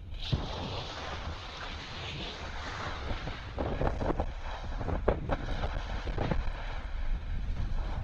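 Strong sea wind buffeting the microphone in irregular gusts, with surf washing on the shore behind it.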